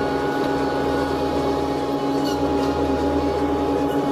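Tracked feller buncher's diesel engine and hydraulics running steadily as the machine swings, a constant whine over a low engine drone.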